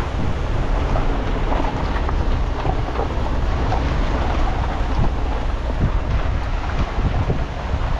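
Car rolling slowly along a dirt lane: a steady low rumble of wind buffeting the microphone mixed with tyre and engine noise, with some faint crackle from the tyres on the ground.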